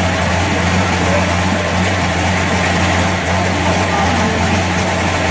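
Engine of a pro street 1965 Chevrolet Chevelle Malibu idling steadily with a low, even rumble.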